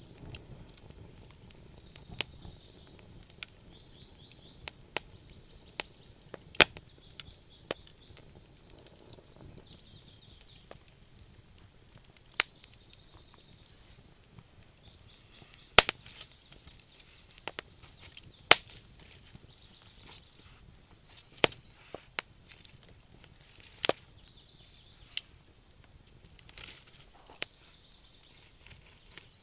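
Wood fire in a fireplace crackling, with irregular sharp pops and snaps from the burning logs, a few much louder than the rest.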